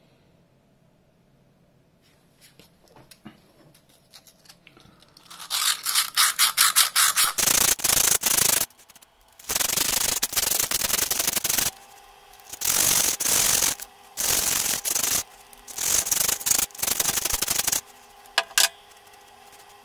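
Coarse P60 sandpaper rubbed by hand inside an antique brass bell. After a few seconds of faint handling clicks, quick short strokes start about five seconds in, then give way to several bursts of steady rubbing, each a second or two long.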